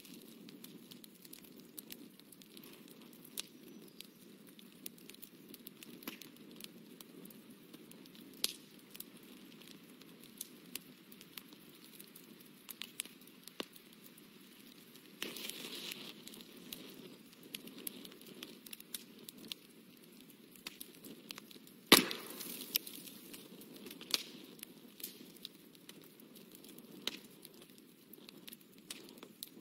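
Faint scratching and dabbing of a paintbrush on watercolour paper, a scatter of small ticks and clicks over a steady low hum. A brief rustle comes about halfway through, and one sharp, louder click follows a few seconds later.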